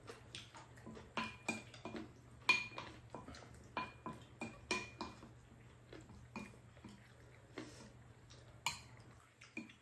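Spoons and chopsticks clinking and scraping against ceramic bowls of rice soup as two people stir and eat, in irregular taps with a short ring, the loudest about two and a half seconds in.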